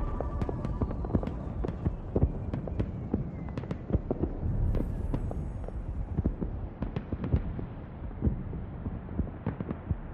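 Irregular sharp pops and crackles over a dense low rumble, fading slowly.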